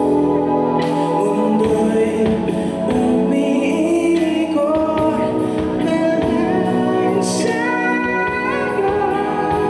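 Background music with singing, held sustained notes over a steady accompaniment.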